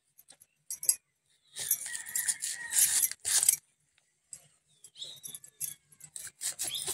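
A blade scraping and slicing through the skin of a raw kanda tuber in quick strokes, thickest in the middle, followed by scattered lighter clicks. Glass bangles clink now and then.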